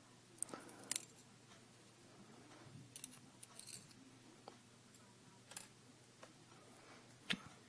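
Scattered small metallic clicks and taps of tools and small lock parts being handled while a pin-tumbler lock is taken apart, about half a dozen irregular clicks with the sharpest about a second in and near the end.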